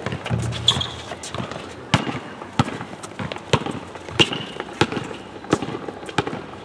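Basketball dribbled on an outdoor hard court: sharp, even bounces about every two-thirds of a second, starting about two seconds in.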